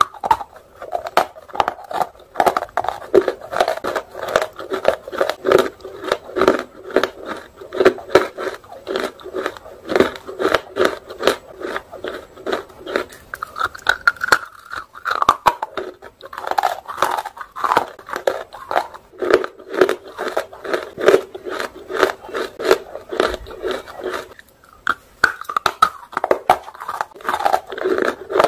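Close-up mouth sounds of someone biting and chewing dry roasted chunks of nakumat: a dense run of brittle crunches, with short lulls between chunks.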